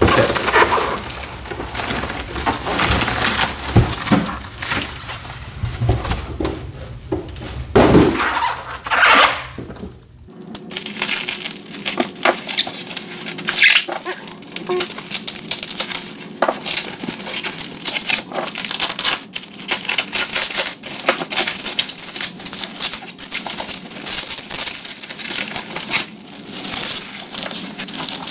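Plastic bubble wrap crinkling and rustling as hands handle it and pull it off a wrapped object, full of small crackles.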